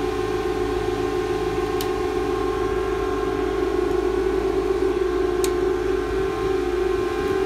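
Steady whirring drone of running Bitmain AntMiner ASIC miners' cooling fans, with a continuous hum tone in it. Two small clicks about two and five seconds in.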